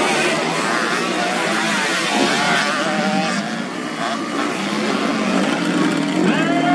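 Several grasstrack race motorcycles with standard bebek (underbone) engines revving and accelerating hard over dirt, their overlapping engine notes rising and falling as they pass.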